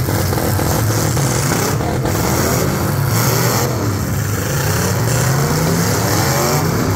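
Several demolition-derby car engines revving hard together, their pitches rising and falling against one another over a steady low rumble.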